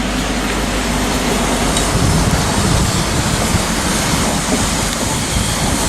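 High Speed Train (InterCity 125) passing along the platform, its coaches' wheels rolling over the rails in a steady, loud rush and rumble.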